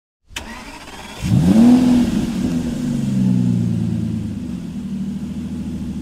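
Car engine starting: after a brief crank it catches about a second in, flares up in revs, then drops back and settles into a steady idle.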